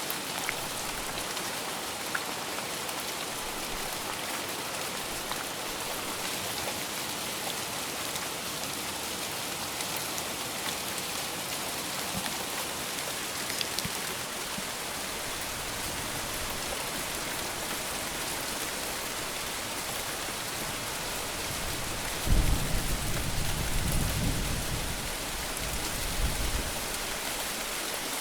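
Steady heavy rain falling, with a low roll of thunder rumbling for several seconds about three-quarters of the way through.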